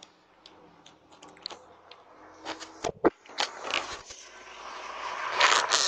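Scraping and clicking handling noise of a person brushing against and touching a video doorbell camera right at its microphone. A few sharp knocks come about three seconds in, and a rising rubbing rush builds near the end.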